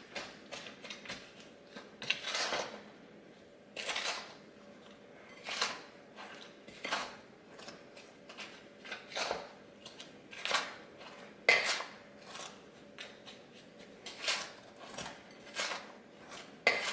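Wooden spoon stirring dry cookie mix in a glass mixing bowl, scraping and knocking against the glass in irregular strokes about once a second as the compacted flour and sugar are broken up.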